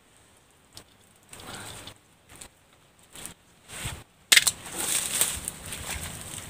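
Dry dead leaves and fronds crackling and rustling as hands rummage through them, a few scattered clicks at first, then much louder crackling that starts suddenly about four seconds in.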